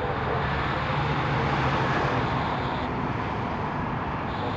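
Airbus A330-243's Rolls-Royce Trent 700 jet engines running at low taxi thrust: a steady roar that swells slightly a second or so in.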